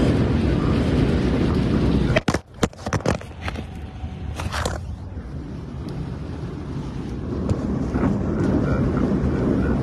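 Steady rumble of a car driving on a wet road in heavy rain, with wind noise on the microphone. About two seconds in, it breaks up into a few sharp clicks and dropouts, then comes back quieter and builds up again over the next few seconds.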